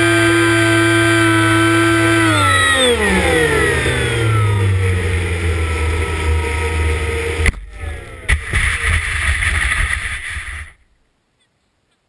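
Electric motor and pusher propeller of a ParkZone Icon A5 RC seaplane, heard from an onboard camera, whining steadily and then falling in pitch as the throttle is cut for landing, leaving wind rushing over the microphone. About seven and a half seconds in, two sharp knocks a moment apart as the plane touches down on snow, then a sliding hiss until the sound cuts off suddenly.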